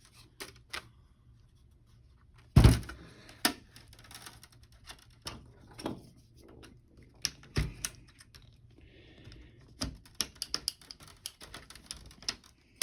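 Scattered clicks, snaps and knocks of plastic laptop parts being pried and handled, as the plastic hinge covers on the screen assembly are worked at. Two louder knocks come about two and a half and seven and a half seconds in, and a quick run of small clicks near the end.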